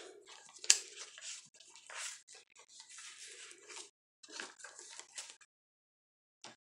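Paper pages and lace trim of a handmade junk journal rustling and brushing as they are turned and handled, in irregular scrapes with one sharp tap about a second in. The handling goes quiet near the end, broken by a single short click.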